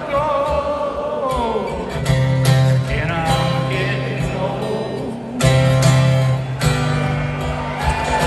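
Live rock-band music led by strummed acoustic guitar, with sustained melody notes over a steady bass.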